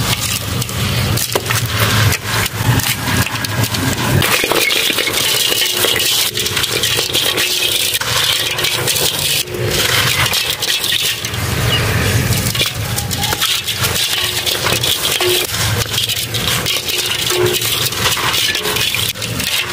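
Hands crushing and crumbling dry clumps of sandy dirt, the grit and small lumps falling back into a metal tub: a dense, continuous gritty crackle of many small crunches and scrapes.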